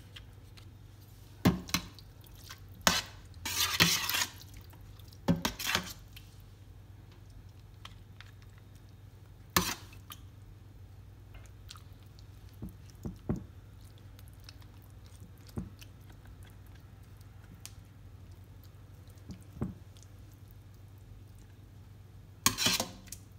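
Metal serving spoon clinking and scraping against a ceramic baking dish while minced-meat sauce is spooned over lasagne sheets: scattered sharp clinks, with a longer scrape about three and a half seconds in and a quick cluster of knocks near the end. A steady low hum runs underneath.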